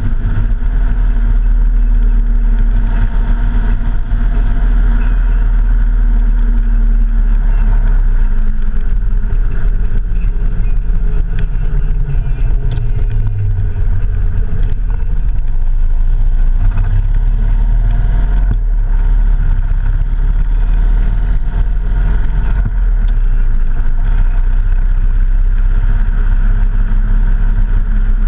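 Vehicle engine running under way, over heavy wind rumble on an externally mounted action camera. The engine note holds, drops steadily for several seconds as the vehicle slows, then climbs again as it speeds back up.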